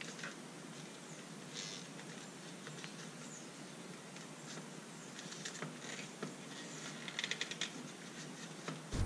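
Faint clicks and light rattling of a plastic dash trim panel with vents and a gauge pod insert being handled, with a quick run of small clicks about seven seconds in.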